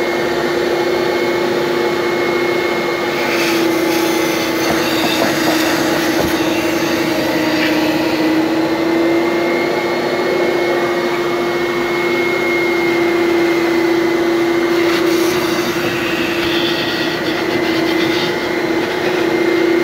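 Upholstery cleaning vacuum running with a steady whine and a rushing of suction as its hose tool is drawn across fabric seat upholstery; the pitch wavers slightly and the hiss changes briefly a few times as the tool moves.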